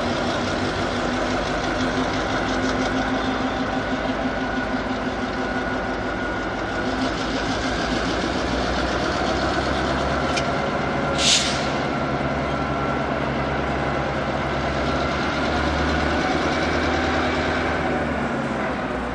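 Diesel locomotive engine running steadily, with a low drone that shifts about nine seconds in. A brief hiss about eleven seconds in.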